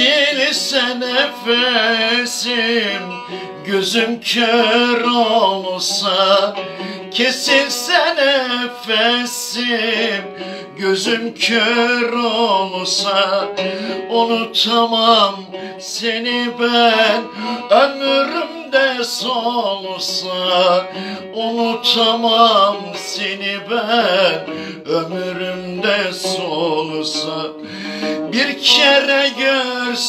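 A man singing a song in Turkish, accompanying himself on a banjo-bodied, long-necked plucked lute that he picks steadily under the voice.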